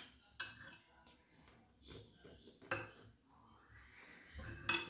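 Faint scattered clicks and taps of a knife against a ceramic plate as a marbled cake is cut, with a few louder knocks near the end.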